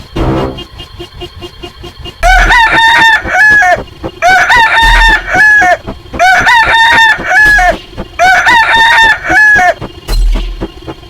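Rooster crowing sound effect, repeated four times in a row, each crow rising and then falling, over a quieter background beat of regular ticks.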